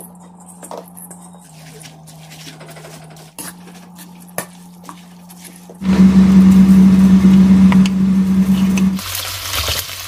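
Background music with sustained low notes and a few soft clicks, much louder from about six seconds in. Near the end, pork belly starts sizzling in oil in a wok.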